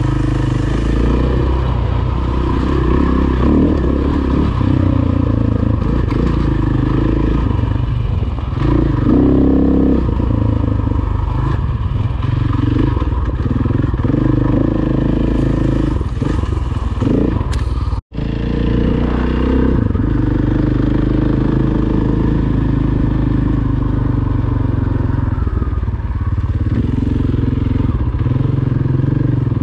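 Dirt bike engine running as it is ridden along a trail, the revs rising and falling. The sound cuts out for an instant about two-thirds of the way through.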